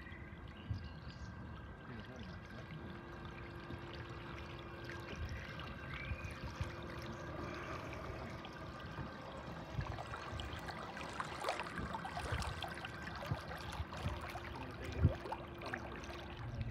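River water lapping and trickling around a slow-moving electric day boat's hull, with a faint steady hum underneath and a few light splashes.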